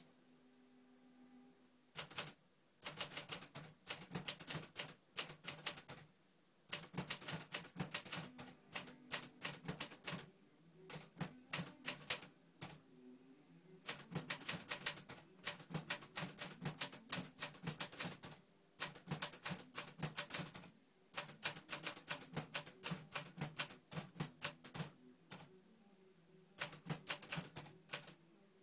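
Hangul (Korean) typewriter being typed on: rapid runs of key strikes in bursts of a few seconds, broken by short pauses, the first run starting about two seconds in.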